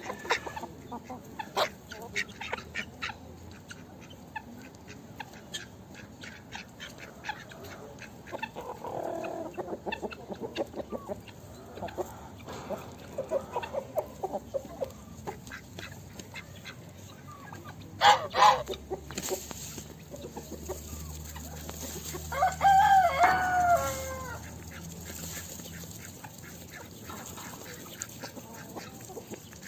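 Chickens clucking among many short sharp clicks, with two loud knocks a little past halfway; then a rooster crows once, a bending call about two seconds long and the loudest sound.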